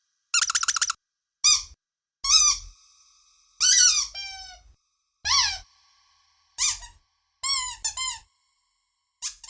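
Squeaky dog toy being squeezed: a quick run of squeaks, then single squeaks and short groups of two or three at uneven gaps, some sliding down in pitch.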